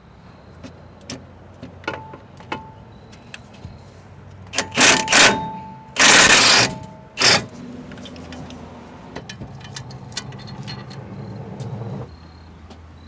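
Impact wrench on socket and swivel extensions, run in four short loud bursts to back out the bolts holding the front wheel hub. Light metallic clinks of tools come before and after the bursts.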